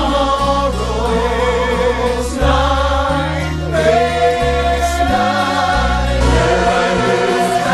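A slow song sung by a choir of several voices with vibrato, over a bass line that moves from note to note.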